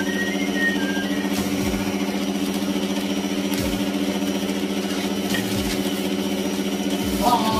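Electric stand mixer motor running steadily with an even hum, whipping egg whites and caster sugar into meringue. Light rustling and tapping of baking paper and a metal tray are heard over it.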